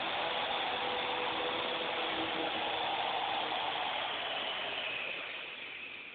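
Small electric toy RC helicopter's rotors whirring steadily in a hover, then the whir drops and fades over the last second or so as it sinks to the floor and lands.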